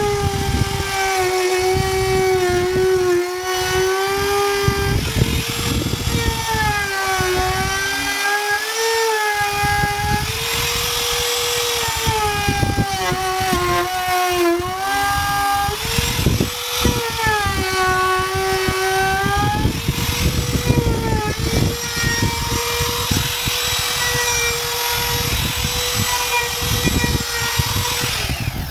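Compact trim router running and cutting a groove around the edge of a hardwood cutting board. Its high motor whine sags and recovers again and again as the bit loads up in the wood, over a constant rough cutting noise.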